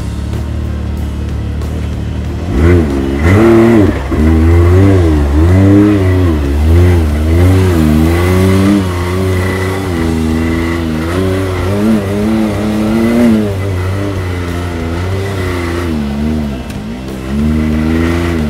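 Side-by-side UTV engine revving up and down again and again under throttle, starting about two and a half seconds in after a steadier low running sound.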